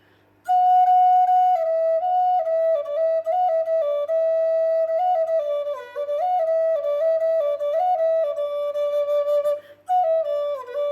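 Solo flute playing a melody of held notes moving in small steps, starting about half a second in, with a short break for breath near the end.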